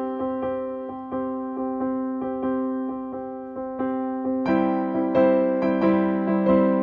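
Background music: a gentle piano piece of sustained, slowly decaying notes, growing fuller and brighter about four and a half seconds in.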